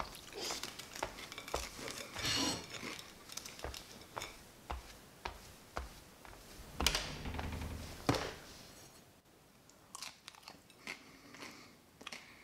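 Quiet kitchen handling sounds: scattered clicks and knocks of crockery and wooden cupboard doors with brief rustling, and two louder knocks about seven and eight seconds in.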